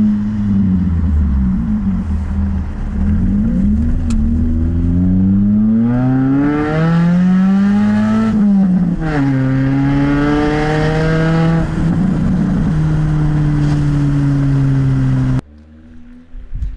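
Lada Priora's four-cylinder engine with the muffler removed, exhaust running straight out, accelerating: the revs climb, drop sharply at a gear change about halfway through, climb again and then hold steady. The sound falls away suddenly near the end.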